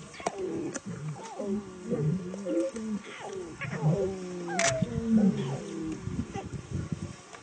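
Several wild animals snarling and growling at once in overlapping, wavering calls, with sharp clicks and a brief higher cry about four and a half seconds in.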